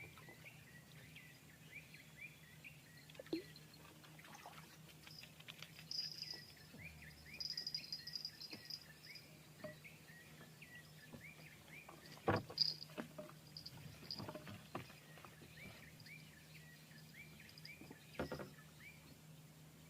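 Small animals chirping outdoors: a steady run of short, quick chirps, with buzzy high trills about 6 and 8 seconds in. Two sharp knocks, about 12 and 18 seconds in, are the loudest sounds.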